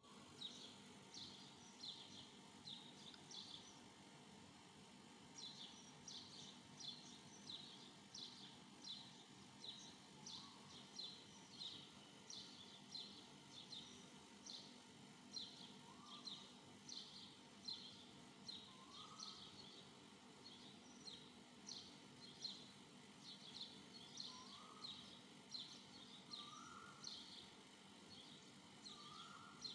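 Faint bird chirping: short high chirps repeating about twice a second, with a lower rising call every few seconds from about ten seconds in.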